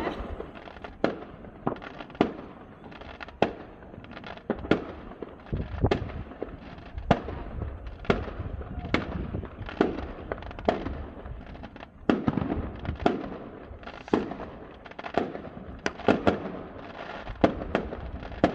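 Fireworks: aerial shells bursting in quick succession, about two sharp bangs a second, with crackling between them.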